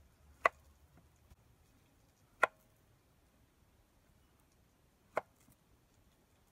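Kitchen knife chopping through peeled ripe plantain onto a wooden board: three sharp knocks of the blade meeting the board, a couple of seconds apart.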